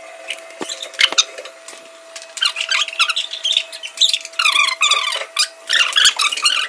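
A young boy squealing and shrieking playfully in repeated high-pitched bursts, starting a couple of seconds in, with a few sharp knocks early on.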